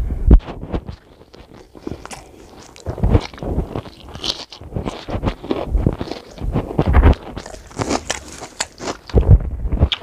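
Close-miked eating by hand: irregular wet chewing, lip smacks and finger-licking, with squelching as fingers mix curry-soaked rice on a steel plate.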